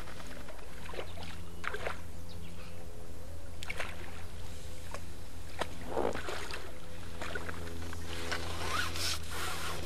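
A hooked fish splashing at the surface as it is played on a pole and drawn into a landing net: several short splashes, the biggest about six seconds in, and water running off the net as it is lifted near the end, over a steady low hum.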